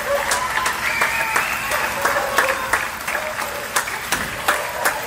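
Applause: many separate hand claps, with a steady pitched tone underneath.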